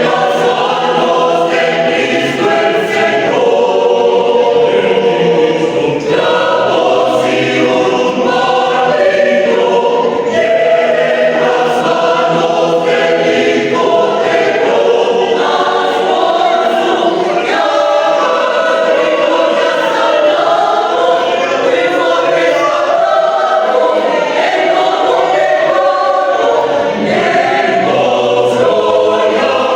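A choir singing, many voices holding long notes together in changing chords.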